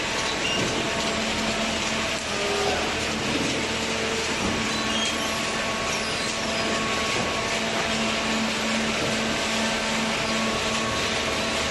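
A hydraulic baler's machinery running steadily, a continuous mechanical noise with a steady low hum throughout.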